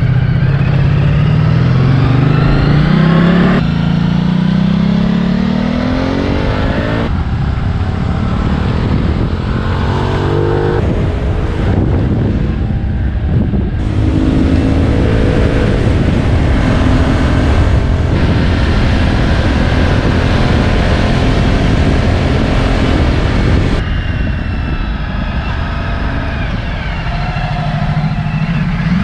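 Ducati Multistrada 1260S's V-twin engine accelerating on the road, its pitch climbing again and again as it pulls through the gears, with heavy wind rush on the microphone. The sound changes abruptly several times, a few seconds to ten seconds apart.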